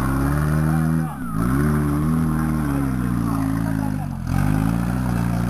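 Off-road 4x4's engine revving hard under load as the truck climbs a muddy slope. The revs drop briefly twice, about a second in and about four seconds in, and each time pick back up.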